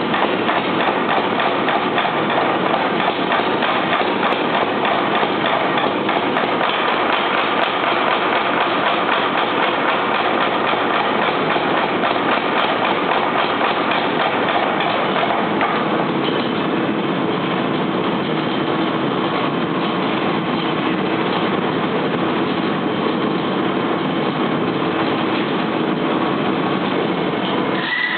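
Little Giant mechanical power hammer running and pounding rapidly while hot steel is drawn out into tapers. The sound thins out a little just past halfway.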